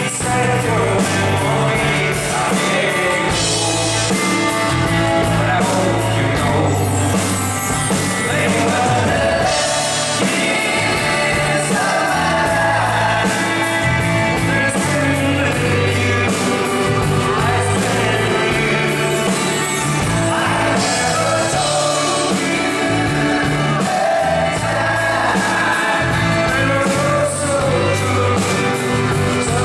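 Live pop-rock band playing: a sung vocal melody over strummed acoustic guitars, electric guitar, bass and a steady drum beat.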